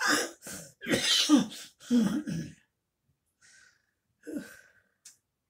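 A man coughing: a run of several coughs in the first two and a half seconds, then one more about four seconds in. He puts the cough down to his COPD, brought on by exertion.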